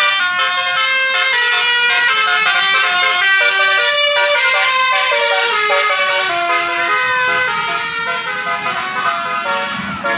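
Bus-mounted Basuri telolet air horn playing a melody: several horn tones sound together and step from note to note without a break.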